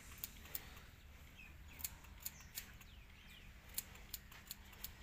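Faint, sharp clicks and ticks at irregular intervals, about a dozen over a few seconds, above a quiet background.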